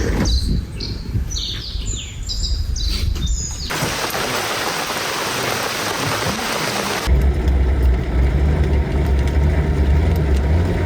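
Small birds chirping in quick, high, falling calls over a low rumble. A few seconds in this cuts to a steady hiss, and halfway through to a loud, steady low hum.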